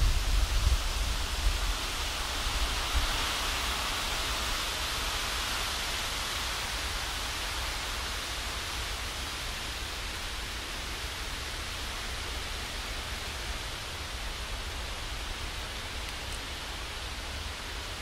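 Wind rustling through the leafy canopy of a forest: a steady hiss that swells in a gust over the first few seconds and then slowly eases. Low rumbles of wind buffeting the microphone come at the start.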